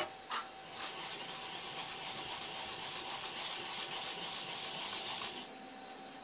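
Fresh wasabi root being grated in circles on a fine-toothed metal grater: a steady rasping scrape lasting about five seconds, stopping shortly before the end. Two short knocks come just before it starts.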